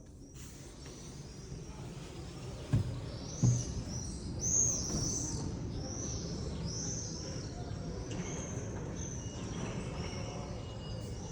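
Birds chirping in a run of short, high, repeated calls, about two a second, over a low steady rumble of background noise. Two dull knocks come about three seconds in.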